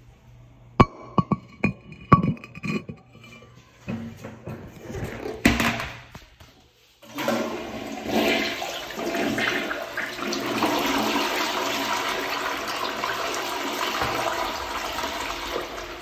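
A few sharp plucked notes of music, then, after a brief gap about seven seconds in, a Kelim toilet flushing: a steady rush of water swirling into the bowl that eases off near the end.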